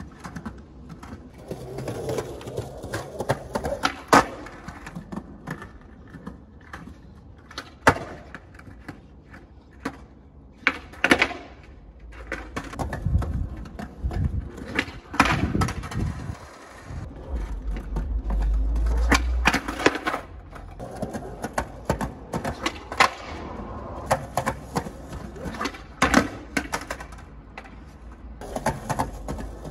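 Skateboard on concrete paving during flat-ground tricks: repeated sharp clacks of the tail popping and the board landing, with wheels rolling between them. A stretch of low rumbling sounds partway through.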